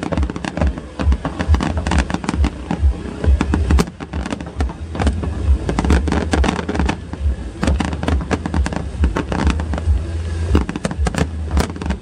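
Fireworks barrage: many sharp bangs and crackles going off in quick, overlapping succession over a continuous low rumble.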